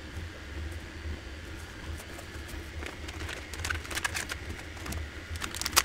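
Unboxing handling sounds: plastic packaging rustling and a few light clicks as parts are lifted out of a foam-lined cardboard box, over a low steady hum. The rustling and clicks come mostly in the second half, with one sharper click near the end.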